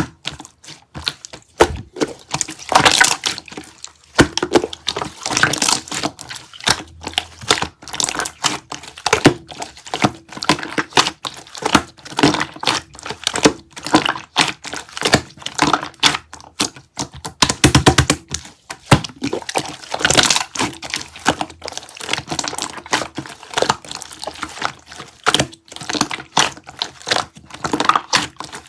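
Dense, irregular crunchy clicking and crackling of sprinkles being pressed and worked close to the microphone, with many small sharp snaps in quick succession.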